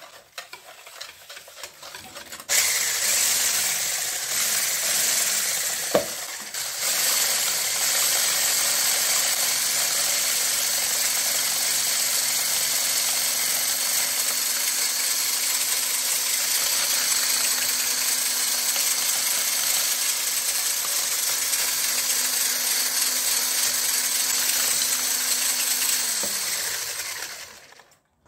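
Electric hand blender with a whisk attachment whirring as it beats eggs and sugar in a bowl. It starts about two and a half seconds in and runs steadily. Near the end it winds down, falling in pitch as it is switched off.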